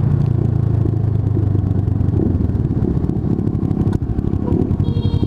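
Kawasaki ER-6n's parallel-twin engine running as the motorcycle is ridden, a steady engine note for the first two seconds or so that then turns rougher and less even.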